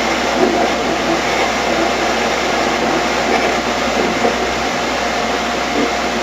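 Ghost box (spirit box) radio sweeping through stations: a steady hiss of static with short broken snatches of radio sound.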